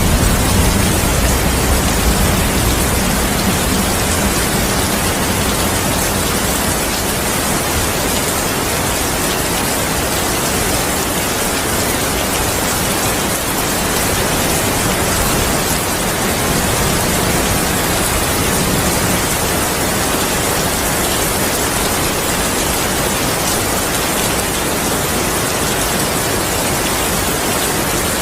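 Steady heavy rain, an even hiss of downpour. A low thunder rumble dies away over the first second or two.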